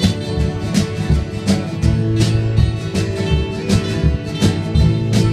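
Live band playing an instrumental break in a country-flavoured rock song: strummed guitar over bass, with drums keeping a steady beat.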